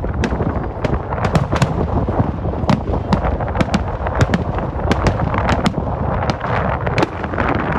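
Kerala temple-festival fireworks (vedikettu) going off in a dense, unbroken barrage: sharp cracks several times a second over a continuous low rumble of booms.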